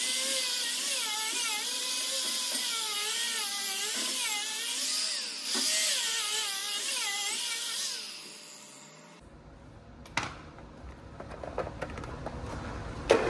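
Small corded rotary tool spinning a wire buff against an aluminium boat hull, cleaning burnt tape residue off a fresh weld. Its high whine wavers up and down in pitch, then the tool is switched off about eight seconds in and winds down. A couple of knocks follow.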